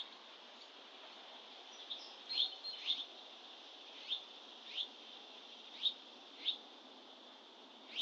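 A songbird giving short, sharp chip notes that fall in pitch, repeated irregularly about once a second, over a faint steady outdoor hiss.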